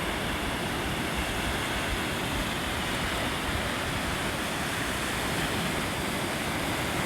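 Steady wash of ocean surf breaking near the shore, heard as an even rush with no separate crashes standing out.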